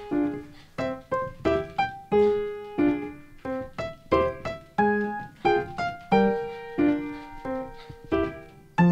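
Background music: a bright keyboard tune of short notes, about three or four a second, each fading quickly.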